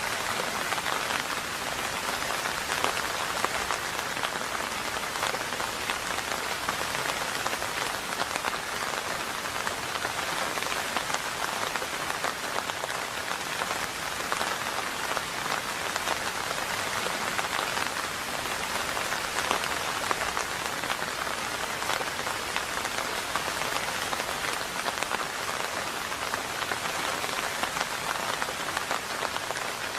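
Steady rain falling, a dense, even patter of drops that holds without change, with no thunder.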